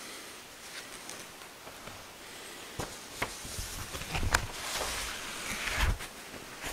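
Handling noises at an altar: a few light knocks as vessels such as the chalice are wiped and set down, with cloth rustling, then the rustle of a large missal page being turned near the end.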